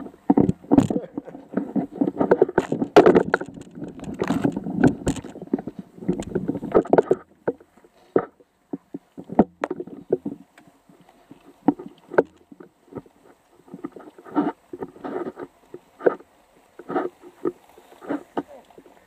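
Bicycle riding through tall grass: the grass swishes and brushes against the bike, with frequent knocks and rattles over rough ground. Dense and busy for the first several seconds, then thinning to scattered clicks and knocks.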